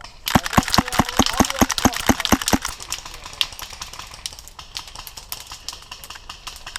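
Airsoft gunfire: a rapid string of sharp cracks, about five a second, that stops about two and a half seconds in, followed by a steady hiss with a few faint clicks.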